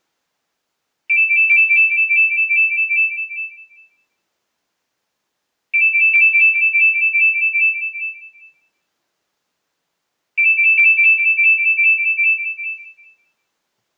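Nokia E63 ringtone: a high, fast-warbling two-tone electronic ring, sounding three times. Each ring lasts about three seconds and tails off, with a short silence between rings.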